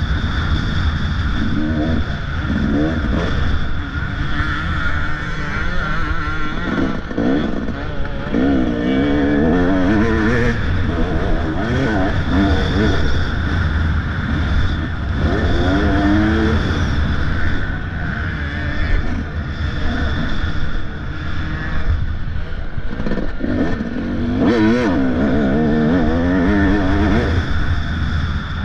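Motocross bike engine revving hard and easing off again and again, its pitch repeatedly climbing and dropping as the rider works the throttle.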